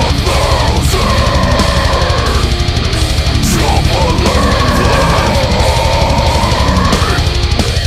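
Loud heavy metal music with distorted guitars, and a lead line holding long notes that bend at their ends.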